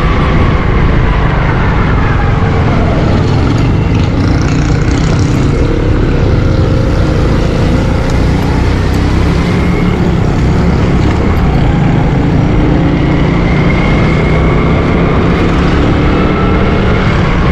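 Motorcycle engine running while riding in traffic, with steady road and wind rumble. The engine note falls and rises again as the bike slows to a crawl partway through and then speeds back up.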